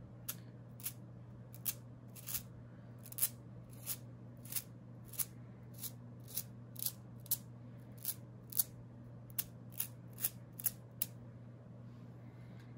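Short, sharp flicks about twice a second, stopping near the end: a finger flicking the bristles of an ink-loaded flat brush to spatter Distress Ink onto paper. A low steady hum runs underneath.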